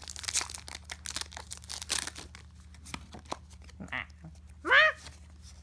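Foil Pokémon booster pack being torn open and crinkled, a dense crackle for the first two seconds that then dies down. Near the end, a short voiced 'oh'-like sound, the loudest moment.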